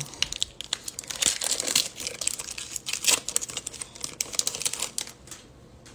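Foil wrapper of a Bowman baseball card pack crinkling as it is torn open by hand: a run of irregular crackles that dies down near the end.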